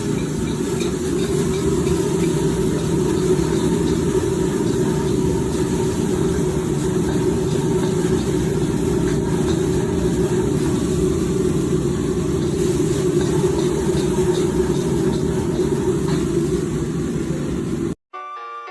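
Steady loud roar of a high-pressure restaurant gas burner cooking over open flame, with a hiss above it; it cuts off suddenly near the end.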